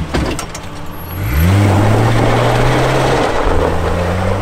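Jeep CJ-7's engine revving up hard, then holding at high revs while its tyres spin and spray loose dirt as it climbs over rocks. A few sharp knocks come near the start, and the revs dip briefly and rise again a little past three seconds in.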